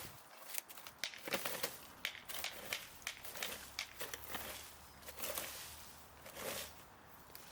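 Irregular rustling and crackling of dry leaves and twigs, with several sharp snaps.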